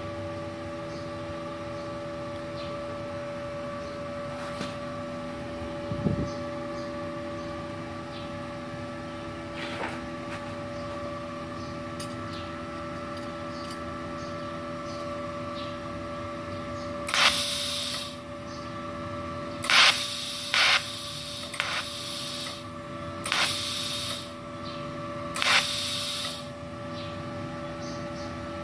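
MultiPro TIG 200A-SA inverter welder switched on, with a steady hum from its fan and electronics. In the last third come several short hissing bursts from the TIG torch just before the arc is struck.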